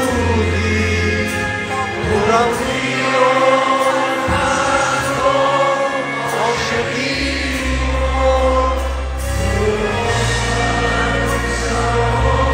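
A male vocalist singing a Persian pop song live over a full band, heard from the audience in a concert hall. The deep bass drops out for a few seconds in the middle, then comes back.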